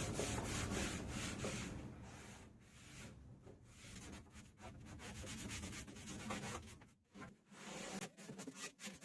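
Sanding on wood: a rough, streaky rubbing, louder for the first two seconds, then quieter and uneven, breaking up about seven seconds in.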